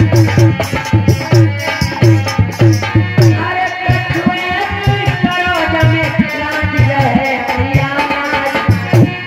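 Devotional folk music: a hand drum beating a steady rhythm with a jingling rattle over it, and a wavering melody line coming in about three and a half seconds in.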